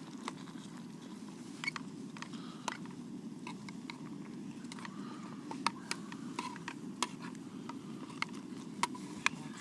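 Kettle heating on a camping stove: a steady low rumble from the burner, with irregular ticks and pops scattered through it.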